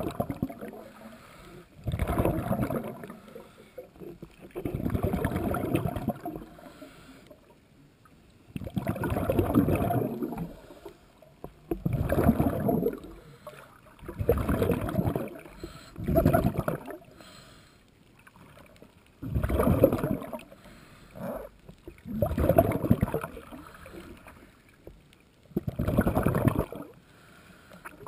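Scuba breathing heard underwater: exhaled bubbles burst from a regulator in a gurgling rush every two to three seconds, with quieter gaps for the inhale between.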